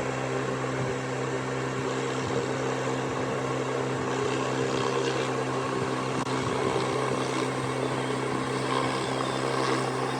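Pressure washer running steadily, its motor drone with a hiss of spray over it.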